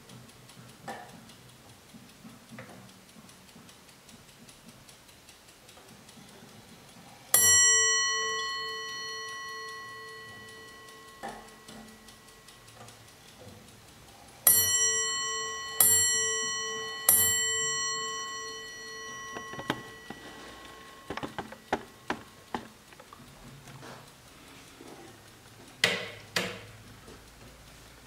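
Le Castel Swiss mantel clock striking on its bell over soft ticking: a single half-hour stroke about seven seconds in, then three strokes for three o'clock about a second and a half apart, each ringing and fading slowly. Near the end, a few sharp clicks and a louder knock.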